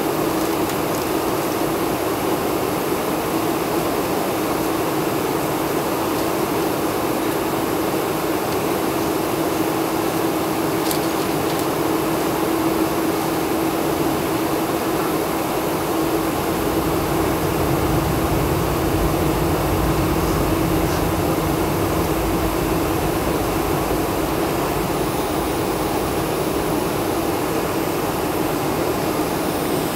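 Steady cabin noise inside a Boeing 747 on the ground: the engines at low taxi power and the air-conditioning rushing, with a steady hum. A deeper low rumble builds from about halfway through.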